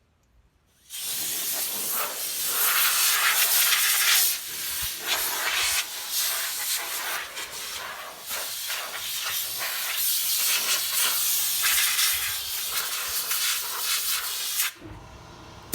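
Compressed-air blow gun hissing in long, uneven blasts, blowing dust off a sanded dash cover; it starts about a second in and cuts off suddenly near the end.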